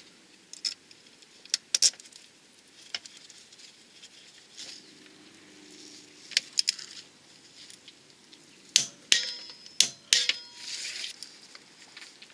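Metal hand tools and bolts clinking and clicking against each other and against metal car parts during gearbox refitting work. The clinks come irregularly, with a cluster of louder, briefly ringing metal knocks a little after the middle.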